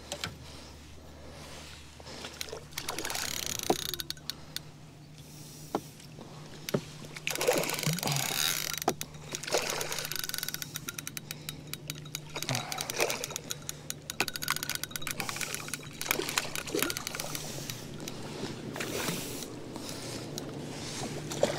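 A hooked carp being played in on a rod and reel, its line fouled across the other rods: irregular bursts of rustling and water noise with scattered clicks from the tackle, over a faint steady low hum.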